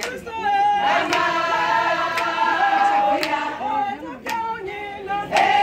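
A group of women singing together in unison, holding long notes, with sharp hand claps keeping time about once a second.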